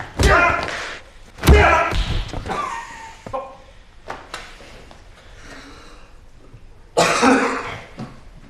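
A man coughing in hard fits: two loud bursts in the first two seconds, weaker coughs and gasps after them, and another loud fit about seven seconds in.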